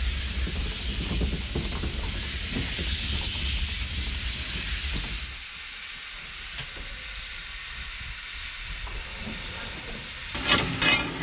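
Steam hissing loudly from a small 0-4-0 saddle-tank steam locomotive, over a low rumble. About five seconds in this drops suddenly to the quieter sound of the locomotive working with its wagons. In the last second there are sharp metal clanks of a fire rake in the firebox.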